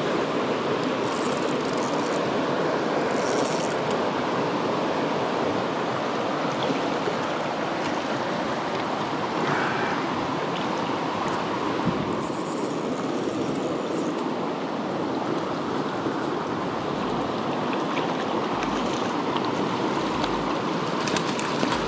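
Creek water rushing steadily over rapids and a small falls, an even, continuous rush of white water.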